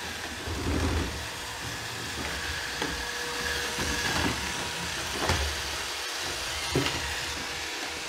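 iRobot Roomba 675 robot vacuum running as it drives across a wood floor searching for its dock, its motors whirring steadily, with a few soft knocks along the way.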